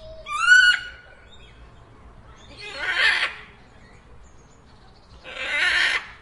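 Parrot calling: a short whistled call rising in pitch, then two harsh, rasping squawks about two and a half seconds apart.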